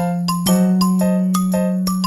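Background music: a light, bell-like melody of quick chiming notes, about four a second, over a held low note.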